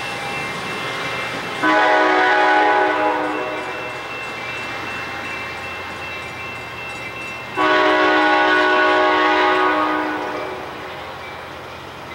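Horn of a departing Capitol Corridor passenger train sounding two long blasts about six seconds apart. Between them is the steady rumble of the train pulling away.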